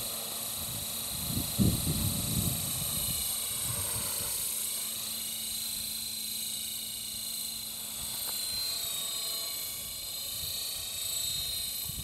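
Radio-controlled model helicopter with a four-blade rotor head flying, a steady high-pitched whine over rotor buzz that shifts slightly in pitch near the end. Brief low rumbles come about one and a half to two and a half seconds in.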